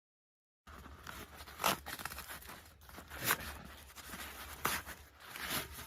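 Dead silence for a moment, then rustling and crinkling of the fire-resistant welding-cloth cover and tent fabric being handled and fitted, with four louder swishes.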